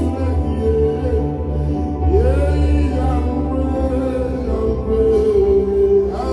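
A man singing to his own electronic keyboard accompaniment, with sustained chords and a steady bass. About two seconds in he slides up into a long held note.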